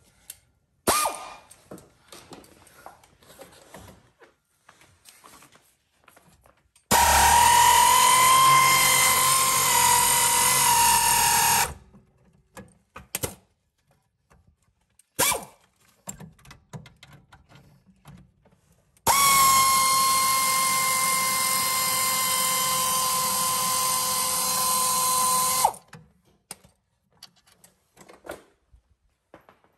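Power tool spinning out the rear brake caliper bracket bolts: a steady whine in two long runs of about five and seven seconds, with short metal clanks from hand tools between them.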